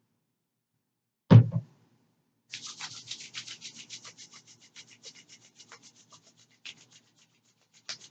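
A single loud thump, then rapid rubbing or brushing strokes close to the microphone, several a second, growing fainter.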